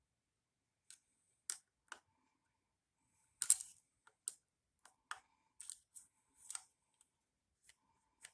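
Scattered light clicks and short scrapes of a small hand tool on metal while the breaker points of a 1964 Johnson 3 hp outboard are adjusted and their screws tightened. The sharpest scrape comes about three and a half seconds in.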